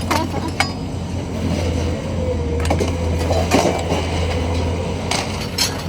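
A steady low engine hum with scattered knocks and clatters of scrap metal being handled, thickest in the middle and near the end.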